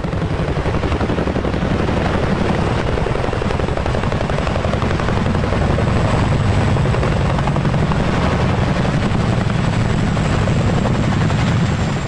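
Two Boeing CH-47 Chinook twin-rotor helicopters flying low and setting down, their rotors giving a loud, steady, fast chop over the turbine noise.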